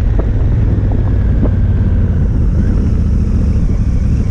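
Honda Africa Twin adventure motorcycle riding steadily on a gravel road: a constant engine and wind rumble on the camera microphone, with a few sharp clicks in the first second and a half.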